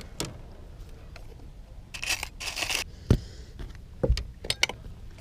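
Handling noise on a chest-mounted action camera: clothing rustles and scrapes against the camera, with a few sharp knocks about three and four seconds in, over a low wind rumble.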